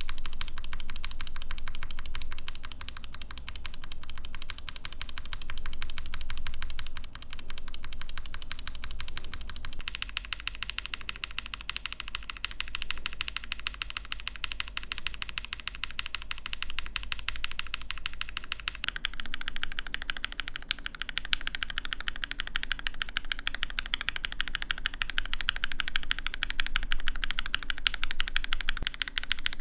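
Fast, continuous typing on linear mechanical keyboard switches in a Mode Eighty keyboard, gasket-mounted with an aluminium plate: a dense run of keystroke clacks whose tone changes abruptly at about ten seconds and again at about nineteen seconds.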